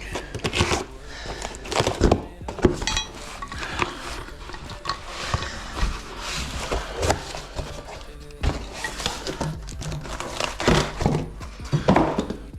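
Toilet part being unpacked and handled: packaging rustling with irregular knocks and clatter of plastic and porcelain parts.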